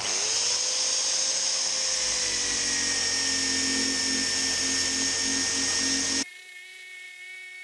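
Hand-held power abrading tool spinning up and running steadily with a high whine while it strips old primer off a steel body panel down to bare metal for MIG welding. It cuts off abruptly about six seconds in, leaving a fainter steady hum with several tones.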